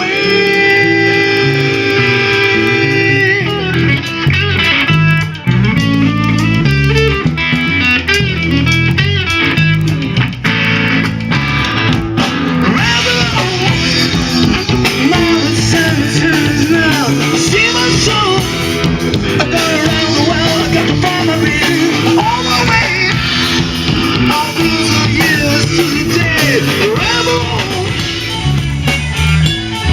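Music: a rock song with guitar and a singing voice.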